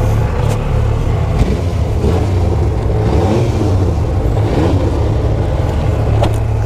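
Supercharged Yamaha YXZ1000R side-by-side's three-cylinder engine running under way, heard from inside the cab, its revs rising and falling, with a few short knocks.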